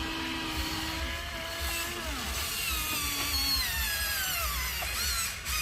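Small electric motors and gearboxes of radio-controlled trucks whining, several pitches sliding down and back up as the vehicles speed up and slow.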